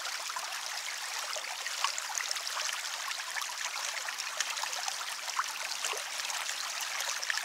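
Shallow river running over stones: a steady rush of water, mostly high and hissy, with many small splashes and trickles.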